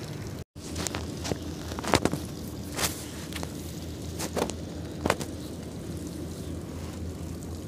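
Small Power Tec outboard motor running with a steady low hum. Four or five sharp knocks sound over it, the loudest about two seconds in.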